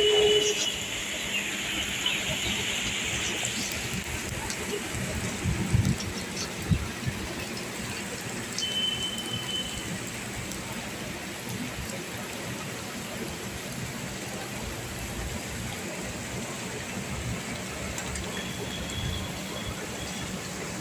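Rain falling steadily, an even hiss of drops, with a couple of sharp knocks about six to seven seconds in and a few brief high-pitched tones.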